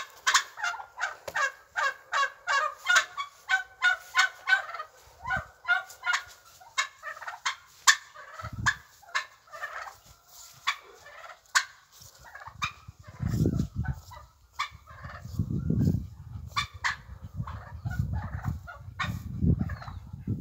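Domestic fowl calling, a fast run of short repeated calls at about three or four a second that thins out after the first half. Bursts of low rumble join in from about two-thirds of the way through.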